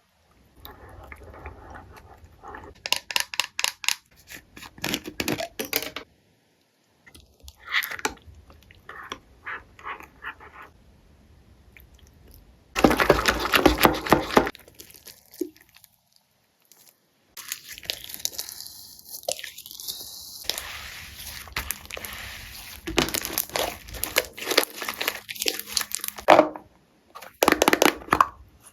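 Crackling, crunching handling noises from making slime, in several separate stretches with short silences between, the loudest about halfway through.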